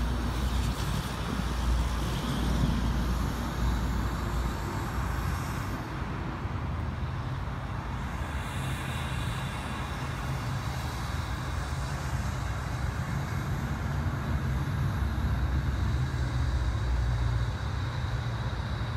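Outdoor background noise: a steady low rumble of road traffic.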